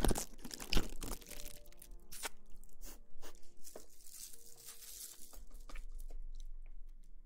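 Close-mic ASMR rustling and crinkling with sharp crackles, densest and loudest in the first second, then sparser clicks over faint held tones.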